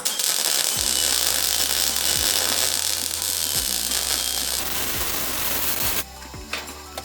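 A metalworking tool running on metal: a loud, steady hiss over a low hum that starts sharply and stops abruptly about six seconds in.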